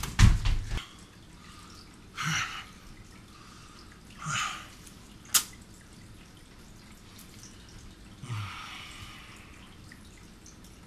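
A couple of thumps at the start, then a person's short breathy gasps and sighs, three in all, the last one longer and falling slightly in pitch. A single sharp click about five seconds in.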